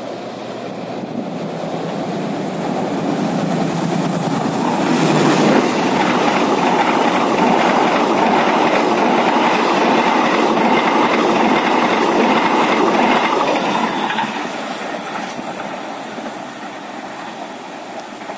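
Passenger train passing close by at a steel truss railway bridge, its wheels rumbling and clattering on the rails. The sound builds over the first few seconds, is loudest for the middle stretch, then fades as the train moves away.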